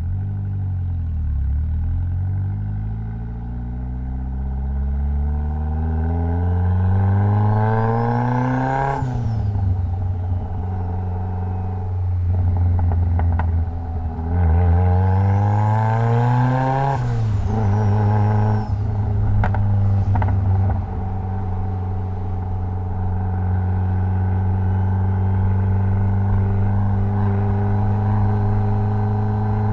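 Mitsubishi Lancer Evolution X's turbocharged 2.0-litre four-cylinder engine accelerating hard. The revs climb for several seconds and fall off sharply, climb again briefly and fall, then the engine holds a steady pitch, cruising.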